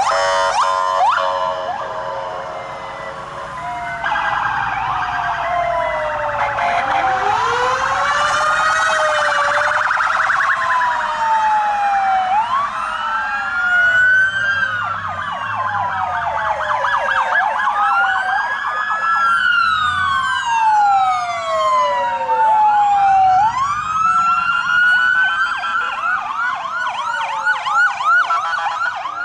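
Several police car electronic sirens sound at once, overlapping as the squad cars pass one after another. Their wails rise and fall every few seconds, broken by stretches of rapid yelp.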